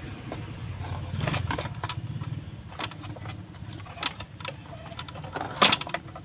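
Small plastic and metal clicks, taps and scrapes from handling the parts of a Samsung A10s phone being taken apart over a plastic tray, over a steady low hum. One sharper click stands out about five and a half seconds in.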